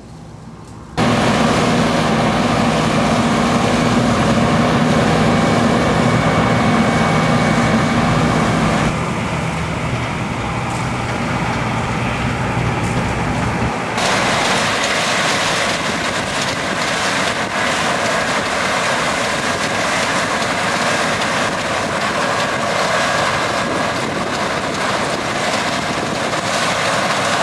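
Fendt combine harvester running as it harvests rapeseed: a loud, steady engine and threshing drone that starts about a second in. Its character shifts abruptly twice, about a third of the way through and again about halfway.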